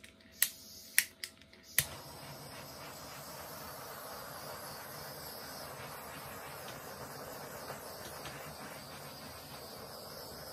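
Handheld torch clicking about five times in the first two seconds before it lights, then hissing steadily as it is played over the wet resin to bring up and pop the bubbles.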